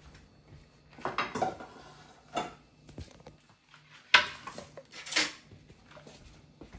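Dishes and utensils clattering: a handful of separate knocks and scrapes, the sharpest about four seconds in.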